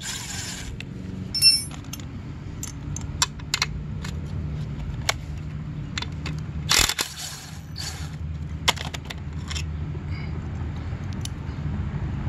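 Cordless power driver with a socket running in short bursts as the chain guide bolts are backed out, with a brief burst at the start and another about seven seconds in. Between the bursts come scattered sharp clicks and metallic clinks of the bolts, nuts and socket being handled, one of them ringing about a second and a half in.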